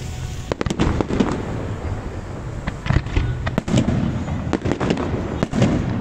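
Aerial firework shells bursting: an irregular run of sharp bangs and crackles, some in quick clusters, over a steady low rumble.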